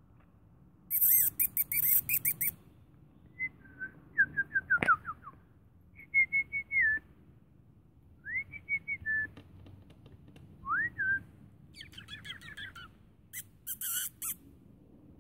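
Songbird singing outdoors: short clear whistled phrases and chirps, some ending in high twitters, coming in bursts with pauses between them. A single sharp click sounds about five seconds in.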